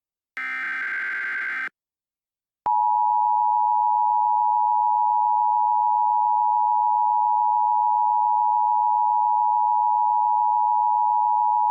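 A burst of Emergency Alert System SAME header data tones ends about a second and a half in. After about a second of silence, the EAS two-tone attention signal (853 and 960 Hz sounded together) starts and holds steady, announcing that an alert message follows.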